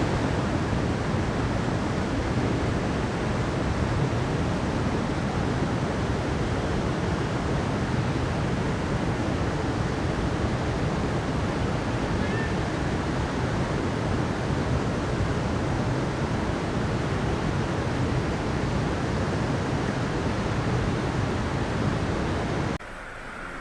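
Ocean surf: a steady, dense rush of breaking waves with no distinct individual swells. Near the end it drops abruptly to a quieter, thinner rush.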